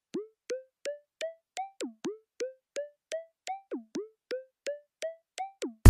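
Intro music: a run of short plucked, synthesized notes, about three a second, each bending up in pitch, climbing in steps with an occasional note that swoops down. Right at the end a louder full music track with deep bass cuts in.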